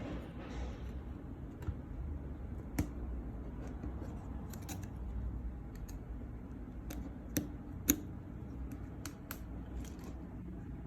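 Scattered small sharp clicks and taps, about a dozen at uneven intervals, the loudest about eight seconds in, from small parts and a tool being handled inside an opened handheld scan-tool tablet, over a low steady hum.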